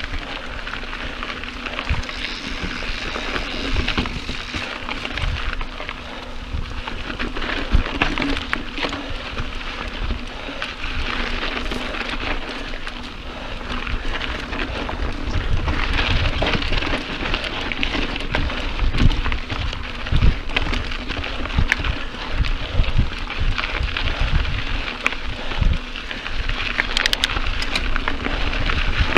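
Mountain bike rolling along a dirt trail: a steady rush of tyre noise over the dirt and gravel, with scattered sharp clicks and rattles and low knocks from bumps. It grows louder in the second half.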